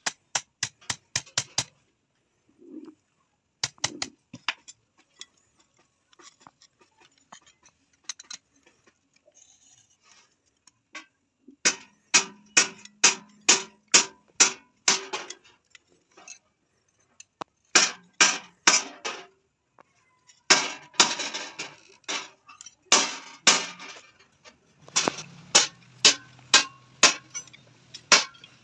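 Hand hammer striking red-hot iron rod on a steel anvil, in runs of ringing metallic blows about three a second, broken by pauses while the work is turned and reheated.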